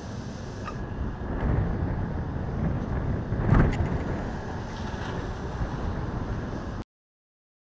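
A motor vehicle driving past, swelling to its loudest about three and a half seconds in, with wind rumbling on the microphone; the sound cuts off suddenly near the end.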